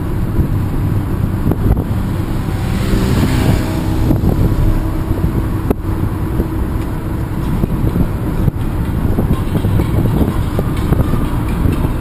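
Renault Kangoo 1.6 petrol van driving on a wet road, with a steady low rumble of engine and tyres and wind buffeting the microphone. About three seconds in there is a brief louder hiss, and near six seconds a single sharp click.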